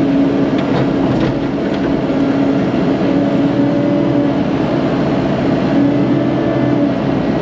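Caterpillar 308 excavator's diesel engine running steadily under load as the machine works its way out of a hole.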